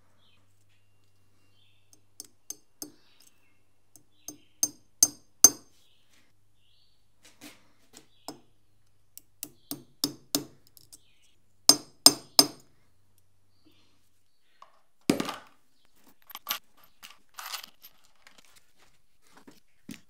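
Small ball-peen hammer tapping on metal, fixing the nameplate to the Procunier tapping head's housing. The light blows come in short runs of three to six, each run building to harder, ringing strikes. A few seconds of scuffing and handling noise follow near the end.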